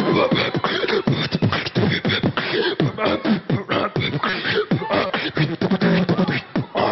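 Beatboxing into a handheld microphone: a fast, unbroken run of percussive mouth clicks, pops and hisses in a quick rhythm.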